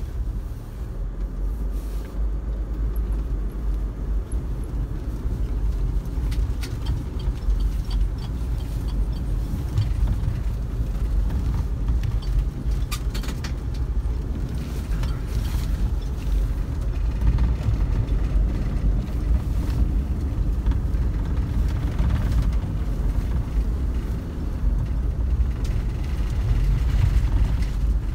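Vehicle driving along a snow-covered track, heard from inside the cab: a steady low rumble of engine and tyres, with a few brief knocks and rattles.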